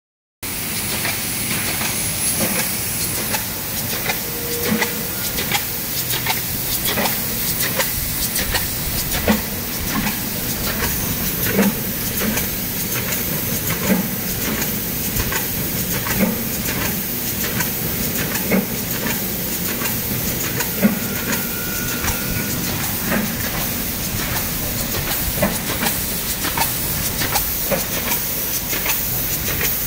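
DGM folder gluer running in production: a steady whir and hiss of belts and rollers, with rapid clicking and a regular knock about every two and a bit seconds.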